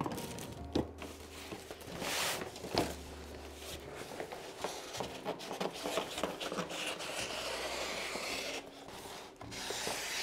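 Large rolls of painted backdrop paper being handled and unrolled on a wooden table: rubbing and rustling of paper, with a few light knocks.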